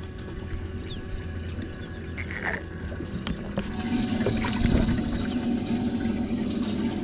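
Water gurgling and trickling on a bass boat over a steady low motor hum, which gets louder about four seconds in with a steadier tone and hiss, like a pump coming on.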